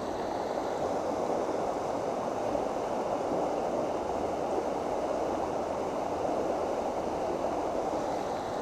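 Steady rush of creek water pouring out of a culvert, an even noise with no breaks.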